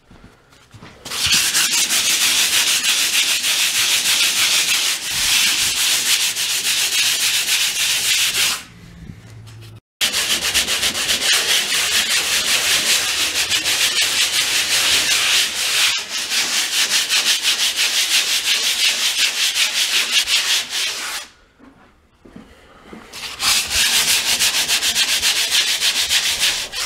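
Hand sanding of hardened Sheetrock 90 setting compound over drywall patches, a rapid scratchy rasp of quick back-and-forth strokes, knocking down the rough edges. The sanding runs in three long spells, pausing briefly about a third of the way in and again near the end.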